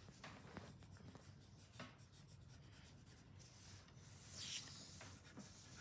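Pencil scratching on paper in faint, short drawing strokes, with a louder rubbing stroke about four seconds in.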